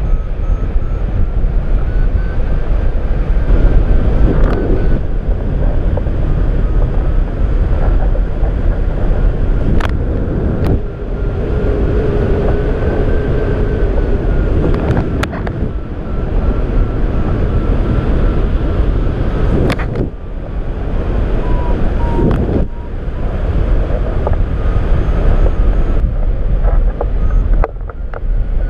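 Airflow rushing over the camera microphone of a rigid-wing hang glider in flight, a steady loud rush with a thin tone that slowly wavers in pitch. A few sharp clicks break through now and then.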